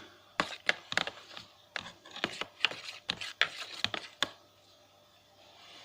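Irregular run of light clicks and knocks, as small hard objects are handled, stopping after about four seconds.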